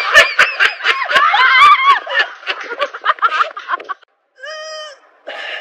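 People laughing and shrieking, with a quick run of sharp clicks through the first two seconds. After a brief break about four seconds in comes a short, held, high cry.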